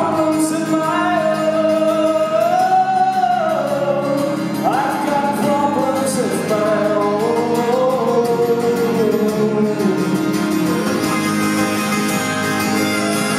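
A male singer sings long, held notes over his own acoustic guitar. The voice stops about ten seconds in and the guitar carries on alone.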